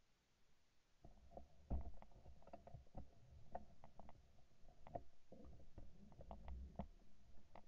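Faint handling noise on a shotgun-mounted camera as the gun is shifted and swung: a run of soft clicks and knocks over a low rumble, starting about a second in.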